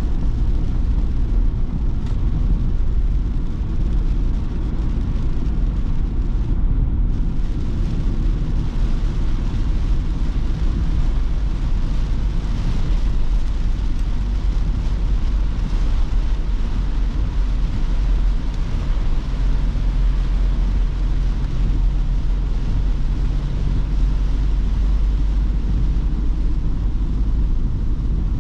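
Steady low rumble of a Ford Transit Custom diesel van driving, its engine and road noise heard from inside the cab.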